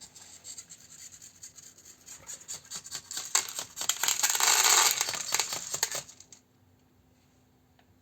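Dry cat food kibble being let out of a kitchen grain dispenser turned by a servo motor, falling as a dense run of small clicks that builds to its loudest about four to five seconds in and stops after about six seconds.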